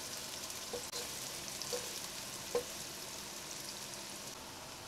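Chopped red onion, ginger and garlic sizzling in hot oil, stirred with a wooden spatula that knocks against the pot a few times, most sharply about two and a half seconds in.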